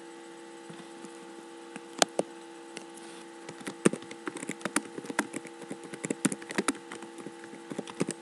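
Typing on a computer keyboard: two key clicks about two seconds in, then a quick, irregular run of keystrokes from about three and a half seconds to near the end, over a steady electrical hum.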